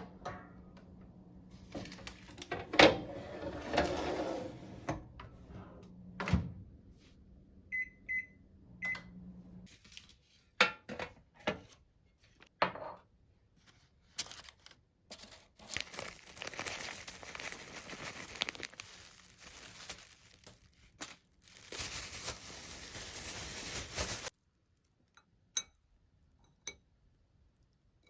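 A kitchen oven running with a steady low hum, then three short high beeps from it about eight seconds in. After that come scattered clicks and knocks of handling, and a long stretch of rustling.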